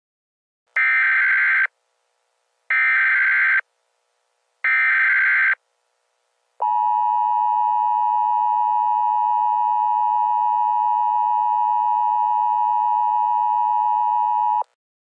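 Emergency Alert System header: three one-second bursts of warbling SAME data tones, a second apart, then the steady EAS two-tone attention signal for about eight seconds, stopping abruptly near the end. Together they mark the start of a new alert, here a tornado warning.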